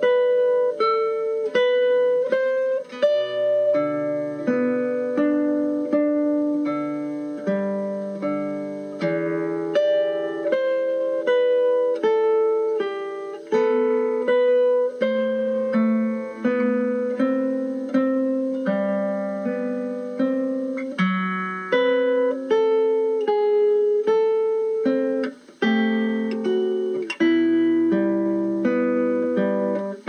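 Background music: a plucked guitar piece, single notes picked in a steady run, a melody over lower bass notes.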